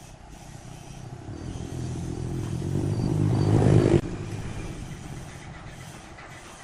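Wood lathe running, with a turning tool cutting into the spinning wood: the cut grows steadily louder and stops abruptly about four seconds in, leaving the lathe's motor hum.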